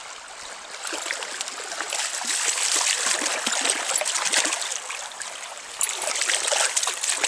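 Stream water running, with splashing and sloshing that grows louder from about a second in and stays busy to the end.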